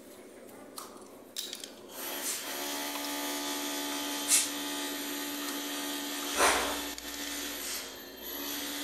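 A few small metal clicks, then a small electric motor starts about two seconds in and runs steadily with a fixed-pitch whine. Two sharp knocks stand out over it.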